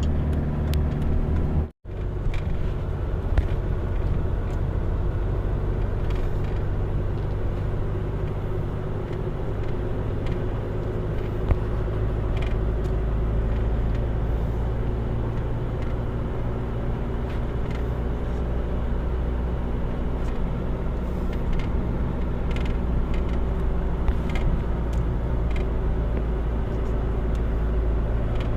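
A vehicle's engine running steadily with a low rumble, cut off by a sudden break about two seconds in and then running on.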